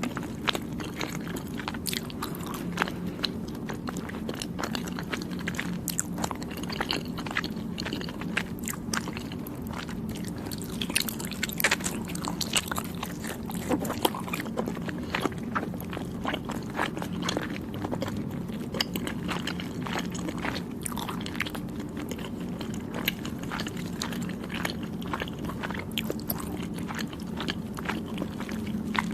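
Close-miked chewing of soft, chewy Thai desserts: a run of small, sharp mouth clicks and smacks as the sweets are bitten and chewed.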